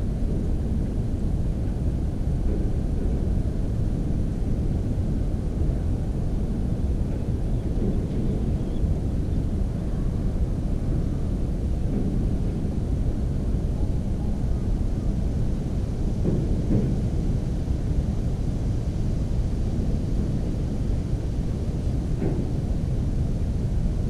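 Steady low rumble of wind on the microphone, with a few faint brief rustles in the second half.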